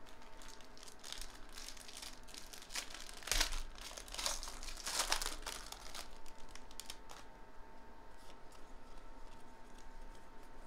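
Foil wrapper of a Bowman Draft Jumbo baseball card pack crinkling and tearing as it is ripped open by hand, in bursts over a few seconds, loudest about three seconds in.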